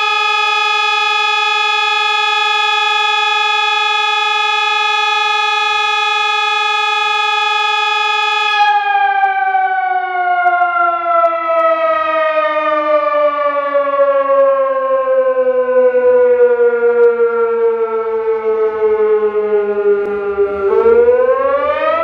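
Sonnenburg SES 1200 electronic siren sounding the German 'Feueralarm' fire alarm signal. A steady tone is held for the first eight seconds or so, then it slides slowly down in pitch for about twelve seconds during the break between the signal's tones, and near the end it rises quickly back up as the next tone begins.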